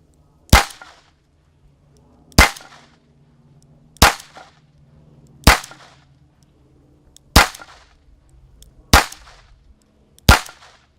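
Seven single shots from a handgun firing Aguila subsonic 60-grain .22 long rifle rounds, spaced about one and a half to two seconds apart, each a sharp report with a brief echo.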